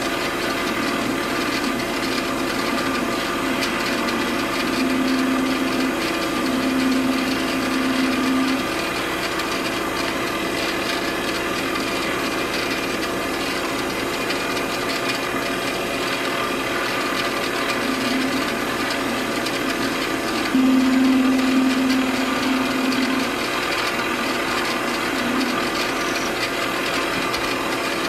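Small metal lathe running with steady motor and gear noise while a turning tool trims a thumb screw held in a collet to length. A low hum swells twice for a few seconds, about a fifth of the way in and again about three quarters through.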